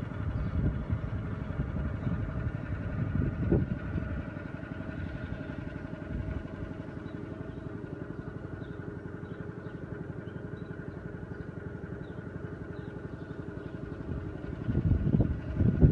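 Engine of a trailer-mounted pressure-washing rig running steadily at a constant speed, with an even rapid pulse. Heavier low rumbling comes and goes in the first few seconds and swells again near the end.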